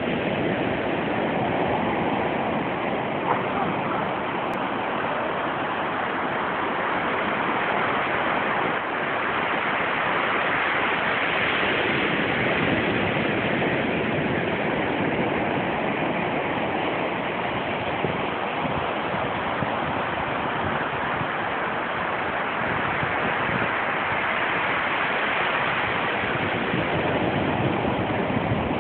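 Surf washing on a beach: a steady rushing noise that swells and eases slowly.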